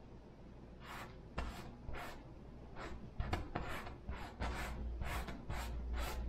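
Paintbrush rubbing and scratching across a canvas in about a dozen short, irregular strokes, starting about a second in.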